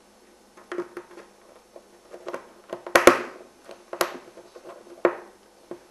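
Small plastic clicks and handling as a slit plastic wire inserter is slipped over the cable and pressed onto the back of a keystone RJ45 jack, with the sharpest clicks about three and four seconds in and another just after five.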